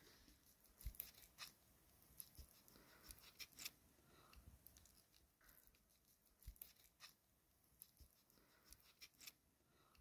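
Faint, scattered clicks and soft tearing of a small knife cutting raw chicken pieces held in the hand.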